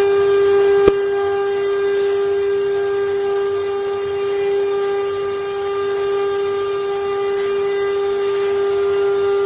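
CNC wood-carving machine's spindle running with a steady, high whine, with one sharp click about a second in.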